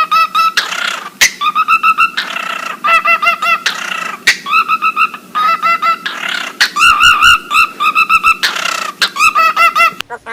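A parrot calling in runs of rapid, repeated high notes, each run about a second long, broken by short harsh bursts.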